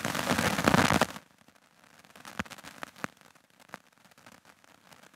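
Loud rustling and crackling of papers handled at a lectern, close to a headset microphone, for about a second. Then it goes quiet, with a few faint clicks and taps.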